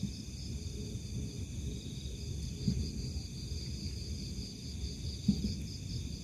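Night insects chirping steadily in a high, pulsing chorus over a low rumble, with two faint thumps, one about halfway in and one near the end.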